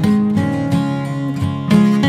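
Background music: strummed acoustic guitar playing chords in a steady rhythm.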